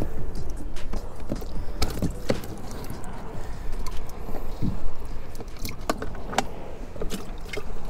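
Irregular plastic clicks and knocks as a bait bucket's lid and latch are handled, over a steady low rumble.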